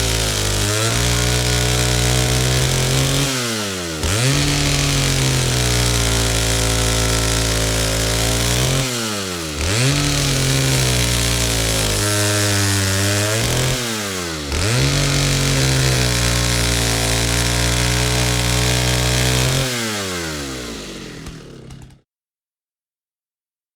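Chainsaw engine held at high revs in long steady stretches, the engine speed dropping and picking back up several times. Near the end the revs fall away and the saw dies out, leaving dead silence.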